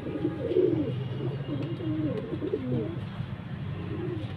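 Domestic pigeons cooing, a low warbling coo repeated through most of the stretch and trailing off near the end.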